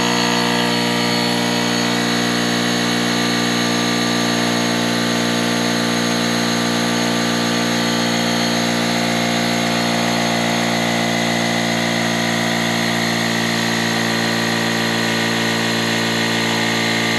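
GOOLOO GT160 cordless portable tire inflator's small electric air compressor running steadily at one pitch while inflating a soccer ball toward its 9 PSI preset.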